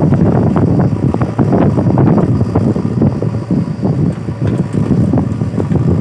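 JCB backhoe loader's diesel engine running hard under load while the backhoe arm digs into the soil and roots at the foot of a big tree, with wind buffeting the microphone.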